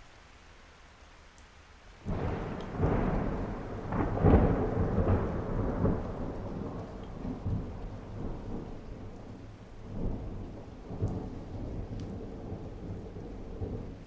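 Heavy rain falling steadily when a clap of thunder breaks in about two seconds in and rolls on as a long rumble, swelling again later and dying back near the end.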